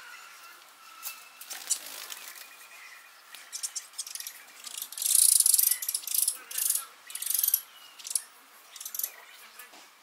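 Small songbirds chirping: a run of short, high-pitched chirps, densest and loudest about halfway through, then several more quick bursts.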